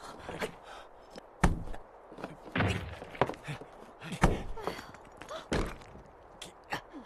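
Rubble being dug out by hand: several dull thuds and knocks of stones and earth being moved and dropped, the loudest about a second and a half in and again just after four seconds in.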